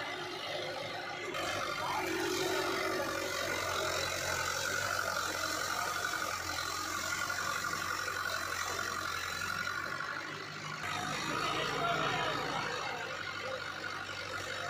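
Mahindra 575 DI tractor's four-cylinder diesel engine running steadily, the tractor stuck under a heavy sugarcane trailer load.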